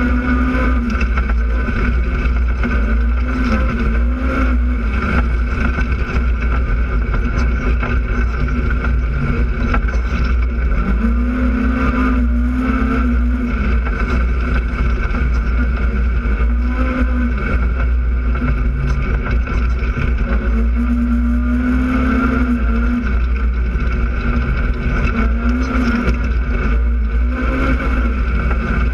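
Polaris RZR side-by-side's engine running under way, its revs rising and falling every few seconds with the throttle over a steady low rumble.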